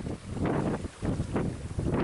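Wind gusting and buffeting across the microphone aboard a small sailboat, a rushing noise that dips briefly twice.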